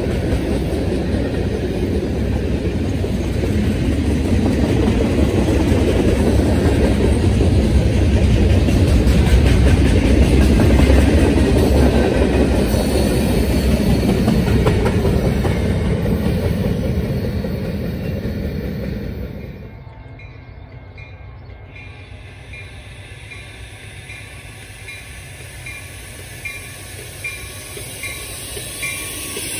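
Freight cars of a Canadian National train rolling past close by: a steady heavy rumble with wheels clattering over the rail joints. About twenty seconds in it gives way abruptly to a quieter scene as a Metra commuter train approaches, with a regularly repeating high ding.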